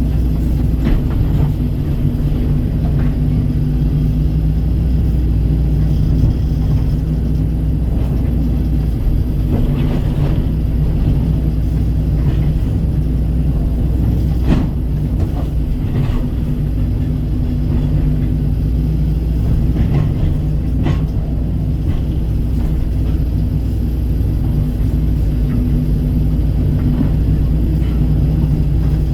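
Kobelco excavator's diesel engine running steadily at working speed, with a few short knocks as it works, the sharpest about halfway through.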